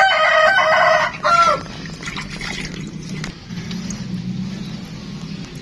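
A rooster crowing: a loud, long held call followed by a short falling last note, over by about a second and a half in. A faint low hum continues after it.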